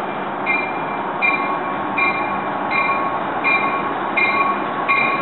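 Commuter train's warning bell ringing steadily, about one stroke every three-quarters of a second, over the running noise of the train pulling into the station.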